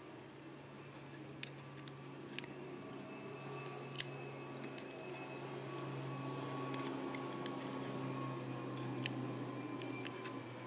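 Small sharp metal clicks and ticks of steel tweezers against the brass plug, pins and springs of a euro cylinder lock as they are worked out, scattered irregularly, the loudest about four seconds in. A faint steady hum runs underneath.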